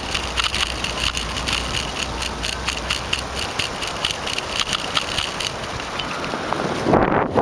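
Bicycle rolling along a paved road with a steady rush of tyre and air noise and quick rattling clicks, about four a second. Near the end a heavy gust of wind buffets the microphone.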